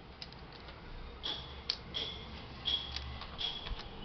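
Irregular light clicks and ticks of a laptop being worked on by hand: plastic casing and small parts being handled, one or two sharp clicks a second.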